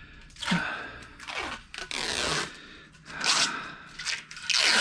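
Aluminium extrusion scraping and sliding against metal in about five short, rough strokes as the rails and cross pieces are worked into place.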